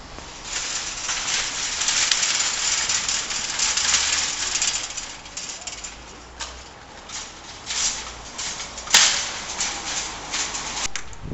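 A row of nested wire shopping carts rattling as it is pushed along, with sharp metal clanks about nine seconds in and again near the end.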